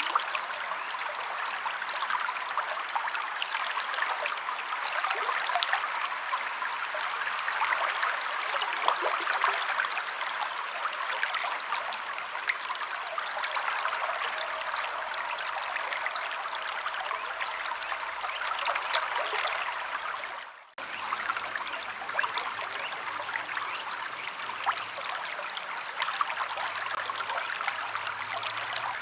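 A shallow stream or river flowing and trickling steadily over stones, with faint short bird chirps now and then. The water sound briefly dips out about two-thirds of the way through and then resumes.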